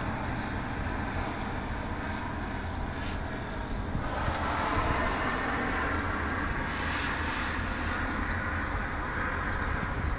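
Sandstorm wind rushing steadily, with low rumbling buffets on the microphone.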